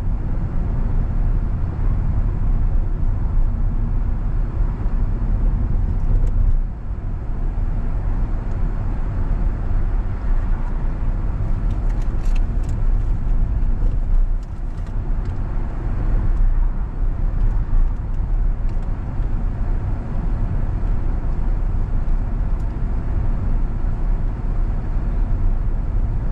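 A car driving at about 20 mph, heard from inside the cabin: a steady low rumble of tyres on the road and the engine, with a few faint clicks about halfway through.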